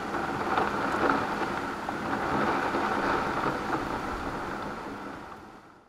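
Heavy rain pouring down steadily, fading out near the end.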